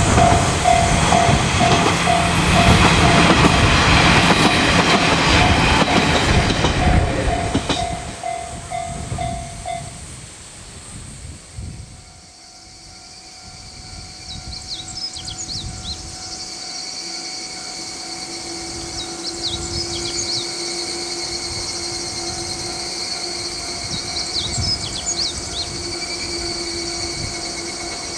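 KiHa 40-series diesel railcar passing close by for about the first eight seconds, wheels and engine loud, while a level-crossing warning bell rings in a fast steady on-off rhythm. The bell stops about ten seconds in and the railcar fades off, leaving a fainter steady hum.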